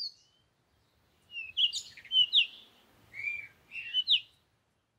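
A bird singing a quick phrase of high chirps and rising-and-falling whistles, starting about a second in and lasting about three seconds.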